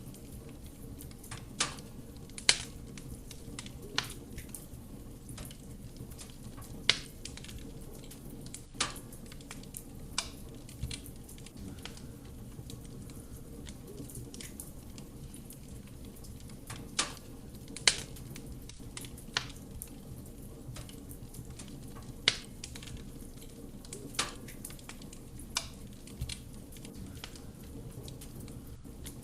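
Wood fire burning in a fireplace: a steady low rumble of flame with irregular sharp crackles and pops from the burning logs, a dozen or so loud snaps scattered through.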